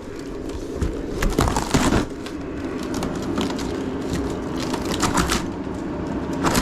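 Irregular cracking, snapping and scraping of wall paneling and rotted wood being pried and torn out, in a few clusters of sharp clicks.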